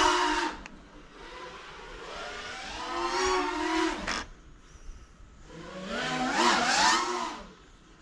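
Brushless motors and propellers of a 5-inch FPV freestyle quadcopter whining, the pitch climbing and falling with the throttle in three surges: one at the start, one about three seconds in, one about six seconds in, with quieter stretches between.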